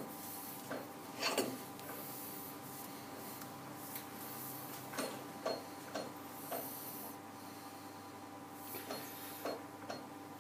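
A hollow Morse taper 3 sleeve is twisted and slid by hand off a turned steel taper during a trial fit with marking blue. It gives scattered light metal clicks and knocks and soft sliding rubs.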